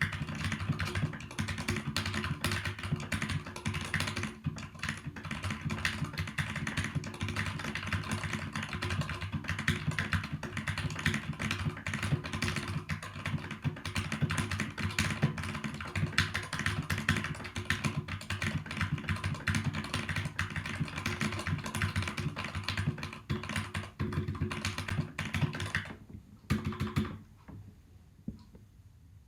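Fast, continuous typing on a Keychron K8 mechanical keyboard with Gateron Red linear switches: a dense, uneven clatter of keystrokes. The typing stops near the end.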